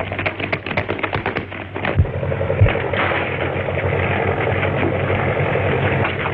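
Rapid running footsteps on stairs for about two seconds, then two heavy thumps, then a steady airplane engine drone from about three seconds in.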